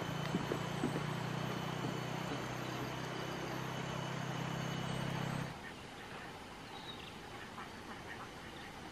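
A motor engine hums steadily under a thin, high, steady tone, then cuts off abruptly about five and a half seconds in. Quieter outdoor sound follows, with faint splashes from a duck bathing in water.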